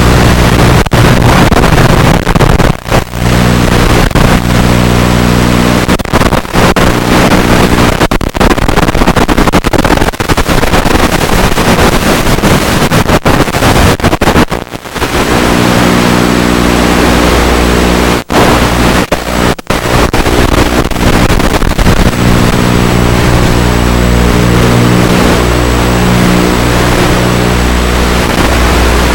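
FPV quadcopter in flight, heard through its onboard recording: loud, harsh motor and propeller noise with wind rush and a steady low buzzing hum underneath. It cuts out briefly several times, most plainly about 15 seconds in.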